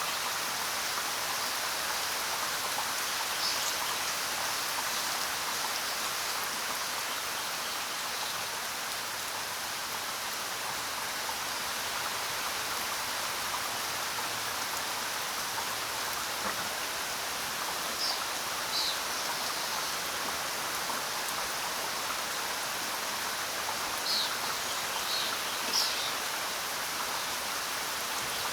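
Steady rain falling, an even hiss of drops, with a few short high chirps now and then.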